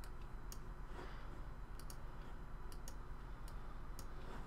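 Scattered clicks of a computer mouse, about eight in all, some in quick pairs, over a low steady room hum.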